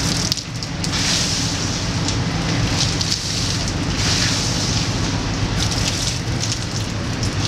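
Steady hiss of rain and wind on a boat's deck, with the low drone of the boat's engine underneath.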